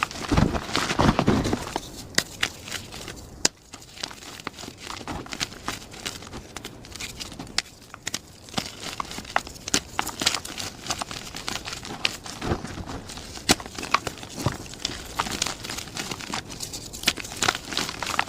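Plain gym chalk being crushed and crumbled by hand: a dense run of crisp crunches and crackles, heaviest in the first two seconds, then lighter irregular crunching with scattered sharp snaps.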